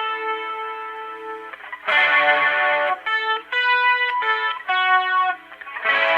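Electric guitar played through a wet channel with distortion, chorus and reverb. A held chord rings and dies away, then a strummed chord, a few single notes, and another full chord near the end.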